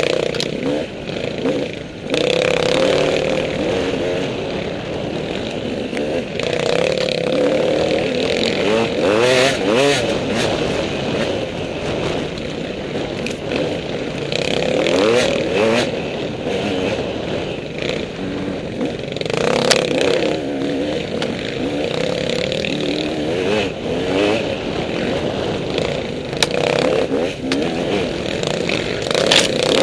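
Two-stroke KTM 200 EXC enduro dirt bike engine revving up and down constantly as the throttle is worked over rough single track, with clatter and knocks from the bike over the rutted ground.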